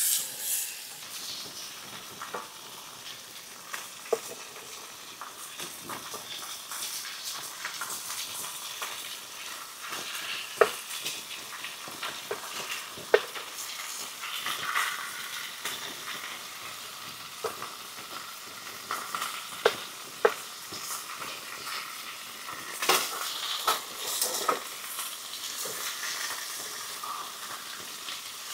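Bacon and pancakes frying in a pan, a steady sizzle broken by sharp clicks and knocks now and then.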